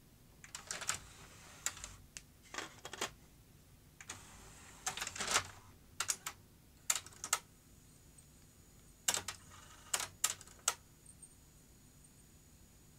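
A series of sharp plastic clicks and clacks as a cassette is put into a Philips DCC900 Digital Compact Cassette deck and its mechanism takes it in. A faint steady high whine starts about two-thirds of the way through.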